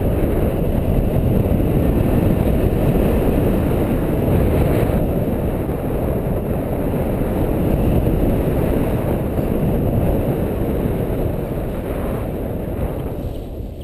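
Wind rushing over the camera microphone of a paraglider in flight, a loud steady rumble that eases off near the end as the glider comes down to land.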